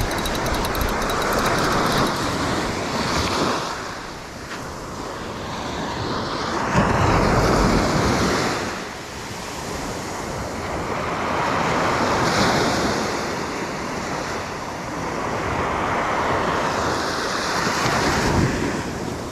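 Small sea waves breaking and washing up a sandy beach, swelling and fading every four or five seconds, with wind buffeting the microphone.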